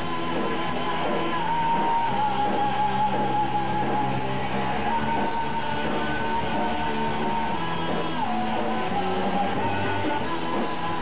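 Live rock band playing loudly: electric guitars over a drum kit, with a long held high note and shouted vocals.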